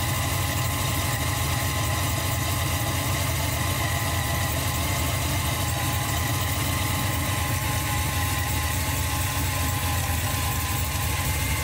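A car engine idling steadily: a deep, even rumble with a few faint steady whining tones above it.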